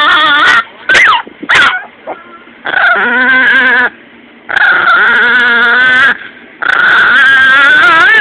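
Small dog snarling with bared teeth while making long, wavering, high-pitched whining cries, with a couple of short gliding yelps about a second in.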